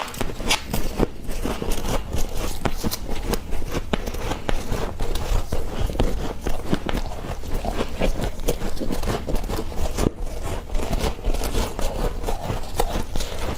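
Freezer frost being bitten and chewed: a close, irregular run of crisp crunches.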